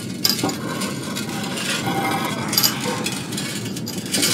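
Iron trolley laden with a bowl of molten glass being pushed across the floor, its metal rattling with a few sharp clinks over a steady noisy background.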